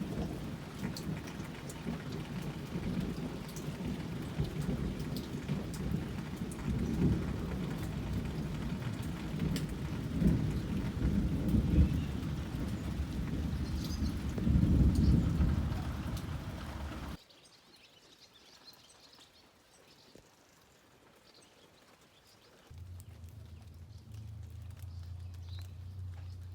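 Heavy rain with rolling thunder, the rumble swelling several times, which cuts off abruptly about two-thirds of the way through. A quiet stretch follows, then a low steady hum for the last few seconds.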